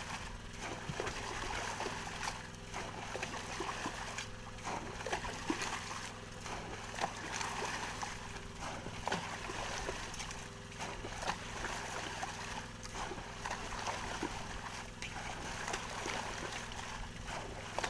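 Water splashing and sloshing continually with many small sharp splashes, as a swarm of squid thrashes at the surface around a scoop net held at the side of an outrigger boat. A steady low hum runs underneath.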